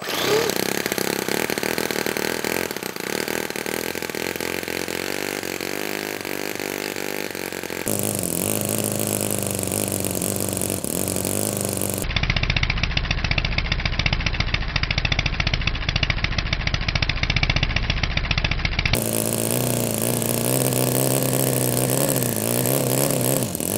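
Toyan FS-S100 miniature four-stroke model engine running on 20% nitro RC fuel with no exhaust fitted, a nice and aggressive, kind of nasty-sounding buzz. From about 12 to 19 seconds in the sound turns deeper and duller, with a heavy low pulsing.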